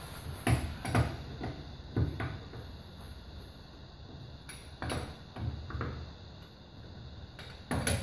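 Metal clanks and knocks of a lug wrench and 17 mm socket being worked on a car wheel's lug nuts to loosen them: a handful of sharp strikes a second or so apart, the loudest near the start and just before the end.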